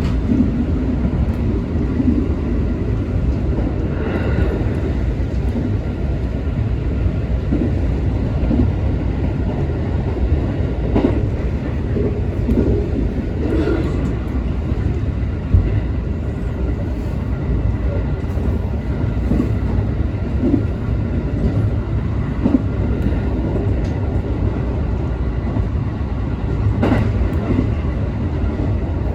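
JR West 221-series electric train running at speed, heard from inside the front car: a steady low rumble with occasional sharp clicks and knocks from the wheels on the track.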